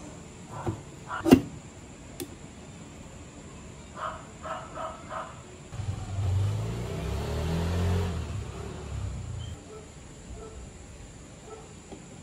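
Wössner +8 mm crankshaft being pressed into an aluminium scooter crankcase: a few light metal knocks, then one sharp knock about a second in as it seats. Later a low rumble swells and fades over about four seconds.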